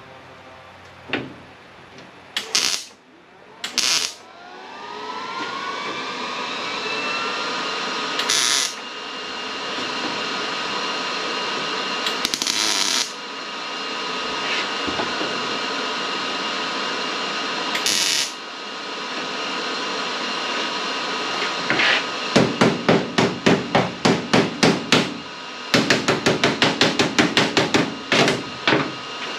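Handheld cut-off tool spinning up with a rising whine and running with a steady high whine on sheet metal, with brief louder bursts as it bites. From about 22 seconds in, two runs of rapid sharp metal strikes, about four or five a second, like hammer blows on sheet steel.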